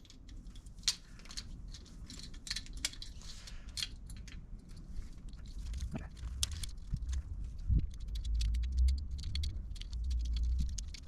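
Hands working at an electrical panel: scattered light clicks and taps of handling wire and parts, with low thumps and rumble of handling from about halfway through.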